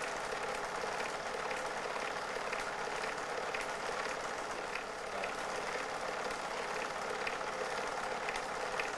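Steady mechanical whirr with a faint hum and light scattered ticks, the sound of a film projector running.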